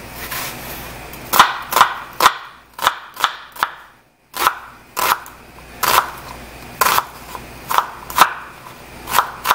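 Chef's knife chopping an onion on a cutting board: a dozen or so sharp knocks of the blade on the board, irregularly spaced at roughly one every half second.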